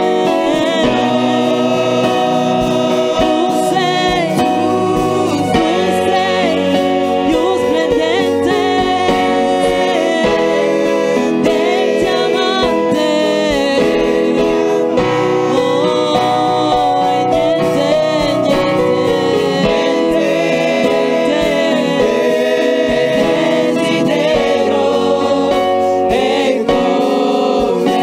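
Gospel worship music: singers with choir voices over sustained instrumental chords, played continuously at a steady level.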